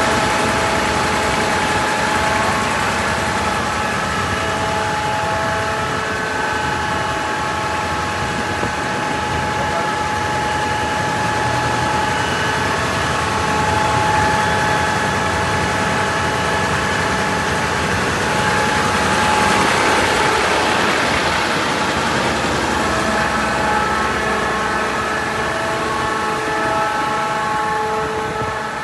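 An engine running steadily with a constant whine of several held tones over a rushing noise, with small shifts in level but no revving or stopping.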